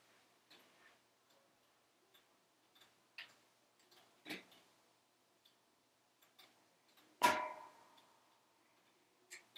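Wood fire crackling in a closed wood-burning stove: scattered small pops and clicks, with one loud crack about seven seconds in that rings briefly.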